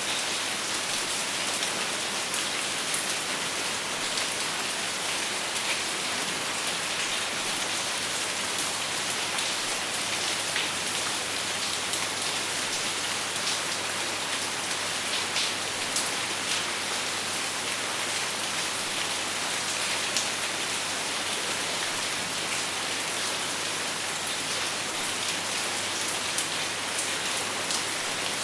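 Steady rain falling on a surface, an even hiss with scattered individual drops ticking, no thunder.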